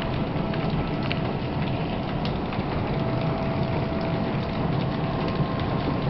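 Steady heavy rain, with a distant outdoor tornado warning siren holding a faint steady tone behind it.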